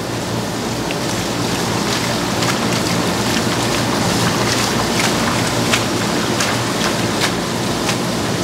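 Tap water spraying from a shower-style faucet head into a plastic basin of live baby octopus, while hands churn and splash through them. It is a steady rush of water, broken by scattered small splashes and ticks.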